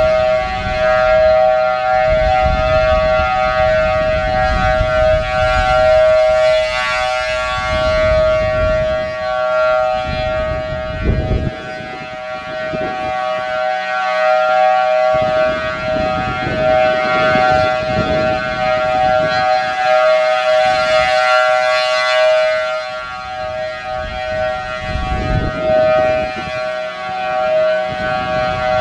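Federal Signal Thunderbolt 1000T outdoor warning siren sounding a steady Alert tone, a held chord of two close pitches that slowly swells and fades as the siren head rotates. Heavy wind rumbles on the microphone in gusts.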